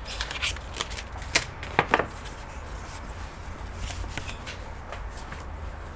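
A laptop being handled on a work surface: a quick series of light clicks and knocks in the first two seconds, then only faint occasional ticks.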